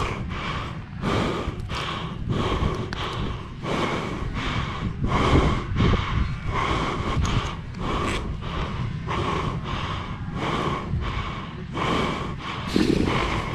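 Cape fur seal breathing hard and fast in short, repeated huffs, about one and a half a second, while held in a capture net, over a steady low wind rumble on the microphone.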